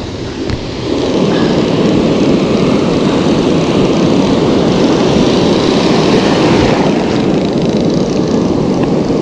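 Loud, steady rush of breaking surf and whitewater washing around the camera, with wind rumbling on the microphone; a little quieter for the first second.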